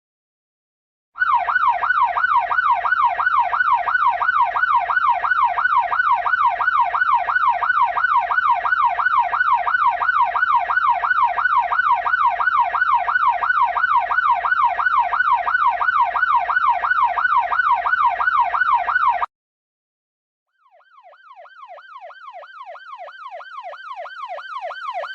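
Ambulance siren on a fast yelp, its pitch sweeping rapidly up and down about four times a second. It cuts off suddenly, and after a gap of about a second and a half it starts again faintly and grows steadily louder.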